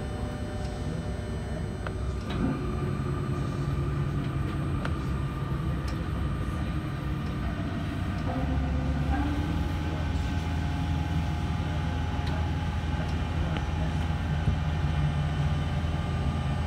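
Z 20500 double-deck electric commuter train heard from inside, running on the line: a continuous rumble of wheels on rail with steady electric tones from the traction equipment. The tones shift and the low rumble grows stronger about halfway through.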